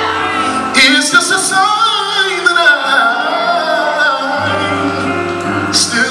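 Male gospel singer singing live into a microphone, his voice bending through long melodic runs, over band accompaniment with sustained low bass notes.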